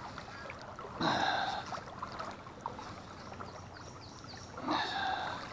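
Water splashing around a hooked walleye thrashing at the surface as it is played to the boat, with two louder splashy bursts, one about a second in and one near the end.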